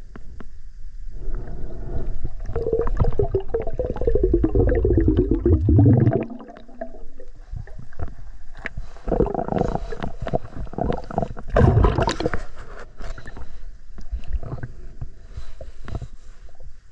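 Heard through an underwater microphone: a motorboat's propeller whine and rumble that falls in pitch as the boat passes, fading out about six seconds in. After it come irregular gurgling and knocks of water against the camera.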